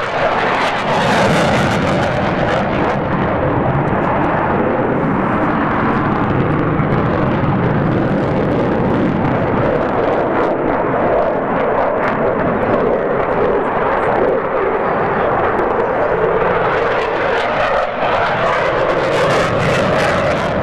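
Eurofighter Typhoon jet fighter flying a display, its twin Eurojet EJ200 turbofans heard from the ground as loud, steady jet noise. The sound is hissier near the start and again near the end as the jet's position changes.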